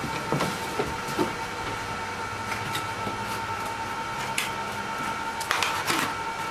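Cardboard boxes being broken down and handled: scattered crackles, rustles and knocks of cardboard, the loudest near the end, over a steady faint electrical whine and hum.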